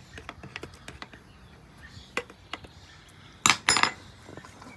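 Metal spoon and fork clinking and scraping against a stainless steel mixing bowl while stirring minced garlic into shredded potatoes: scattered light clinks, with a louder cluster of clinks about three and a half seconds in.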